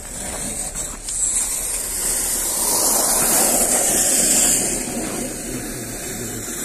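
Rushing road-traffic noise that swells as a vehicle passes close by, loudest about three to four seconds in, then easing.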